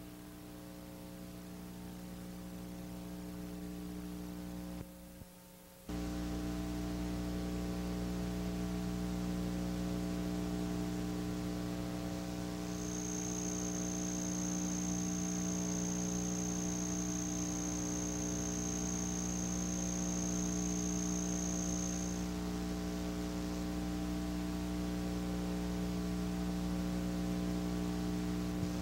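Steady electrical mains hum with a buzzy stack of evenly spaced overtones on a videotape's audio track, dipping briefly about five seconds in. A thin high whistle comes in about halfway through and stops about nine seconds later.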